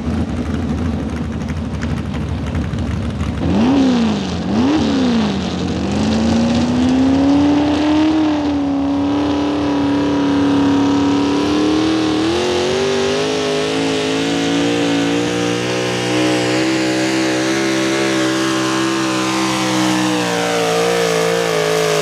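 V8 small-block engine of an Oliver modified pulling tractor, idling, then blipped twice sharply, then brought up to high revs and held there as it pulls the weight-transfer sled. The pitch steps up once about halfway through the pull.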